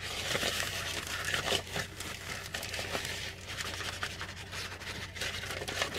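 Zip-top plastic bag with a bag of flour inside crinkling and rustling as it is handled and opened, in a run of irregular crackles.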